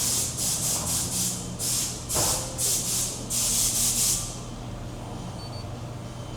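A quick run of about ten short rubbing strokes, which stop about four seconds in.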